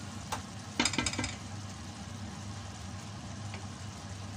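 A wooden spatula knocks several times against the rim of a stainless steel pot, about a second in, after a single light click. Underneath, a thick coconut-milk sauce simmers steadily in the pot.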